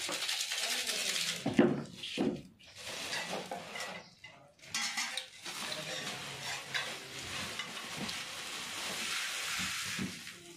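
Spoon stirring and scraping a dry snack mix in a plastic bowl, with a few sharp knocks about two seconds in. In the second half a plastic bag crinkles steadily as puffed rice pours from it into the bowl.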